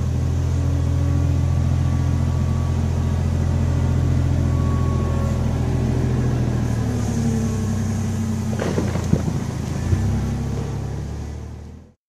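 Engine of a front loader running steadily as it loads compost into a dump truck, its note shifting about seven seconds in. A few sharp knocks come around nine seconds, and the sound fades out near the end.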